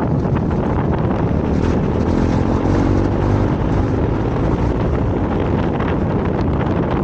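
KTM 390 Adventure's single-cylinder engine running steadily as the motorcycle rides along a dirt track, with wind buffeting the microphone.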